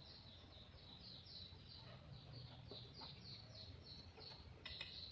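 A bird chirping faintly in a rapid, even series of short, high, falling notes, about four a second, over a low steady hum, with a faint click near the end.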